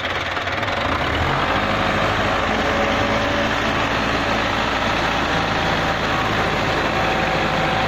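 Belarus 510 tractor's diesel engine running steadily; about a second in its low note changes as it takes up load and the tractor moves off.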